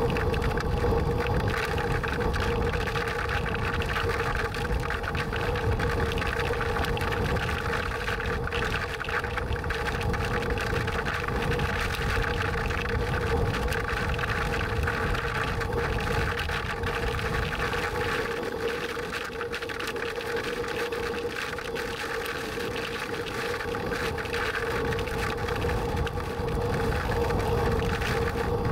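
Road noise and a steady drone inside a moving vehicle's cabin, with a constant hum over a low rumble.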